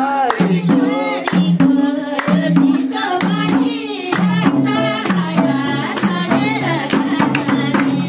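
Nepali folk song at a party: a man singing into a microphone through a PA speaker over a steady stepping bass line and an even drum beat, with hand clapping.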